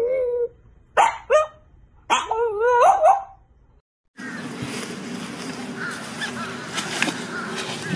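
French bulldog howling in a wavering, rising-and-falling voice, with two short yelps about a second in and a longer wavering howl after them. About four seconds in the sound cuts off and gives way to a steady noisy outdoor background.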